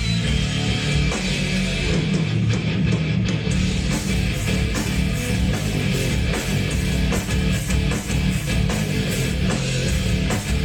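Heavy metal song: electric guitars strummed over bass and drums, with the cymbals filling out the high end about four seconds in.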